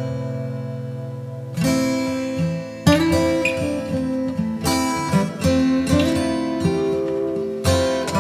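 Background music of plucked guitar-like strings: a held chord fades out, then new runs of notes start about one and a half seconds in and again about three seconds in.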